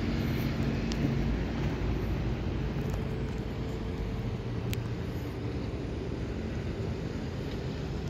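Steady low rumble of road traffic, with a faint engine hum running through it.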